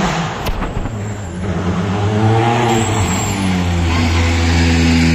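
Hyundai i20 N Rally1 rally car's 1.6-litre turbocharged four-cylinder engine running at low revs as the car rolls up. The engine note rises a little about two seconds in, then holds steady.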